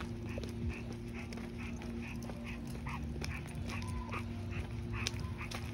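A dog panting quickly, about two to three breaths a second, with a brief whine about four seconds in.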